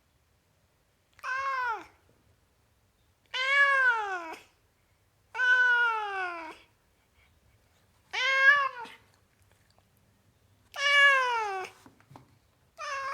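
Tomcat meowing in six separate calls of about a second each, roughly every two seconds with silence between. Each call rises slightly and then falls in pitch, and the last one starts near the end.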